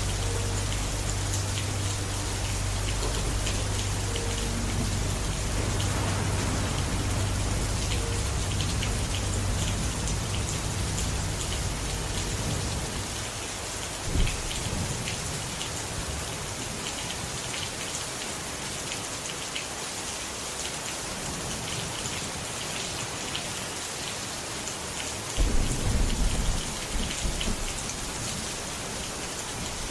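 Steady rain falling, with thunder: a low rumble that fades away over the first part, a sudden clap about halfway, and a louder clap followed by rumbling near the end.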